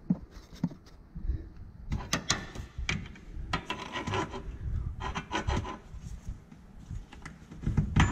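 Irregular scraping and knocking of metal as a pry bar and mounting bolt are worked into the rear leaf spring's hanger on a Club Car golf cart.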